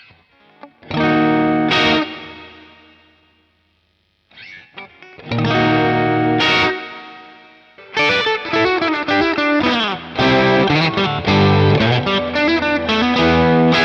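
Electric guitar played through a Caline Pure Sky overdrive pedal (a Timmy clone) giving a light overdriven crunch. A chord is struck about a second in and left to ring and fade, another is struck about five seconds in, then a busier run of notes and chords starts about eight seconds in.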